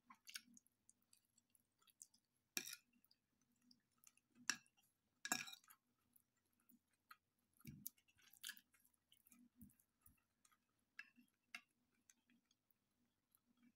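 Quiet eating sounds: soft chewing, with a knife and fork clinking and scraping against a ceramic plate in a few sharp, irregular clicks.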